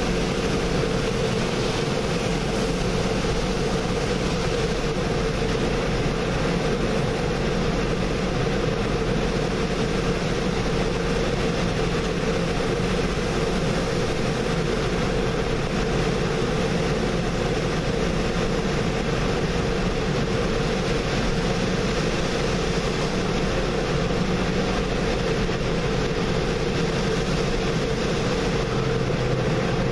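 Automatic tunnel car wash heard from inside the car: water and foam spraying steadily against the windows, over a constant machine hum.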